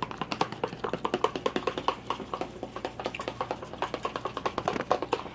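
A utensil whisking flour into a cup of cold water to make a slurry for thickening gravy, clicking quickly and evenly against the cup, about seven times a second.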